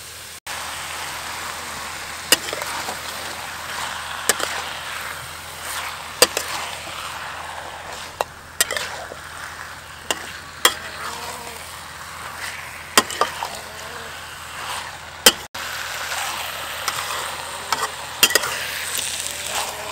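Spice-coated chicken pieces sizzling as they stir-fry in a hot wok, with a metal spatula scraping and clacking against the pan every second or two.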